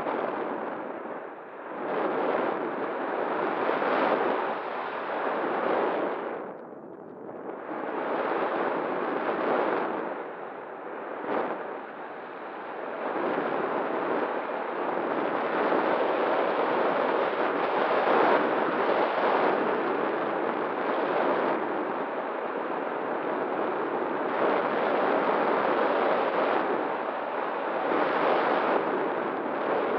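Wind rushing over a model plane's onboard camera microphone, swelling and fading every few seconds with a dip about seven seconds in, over a faint steady whine from the propeller motor.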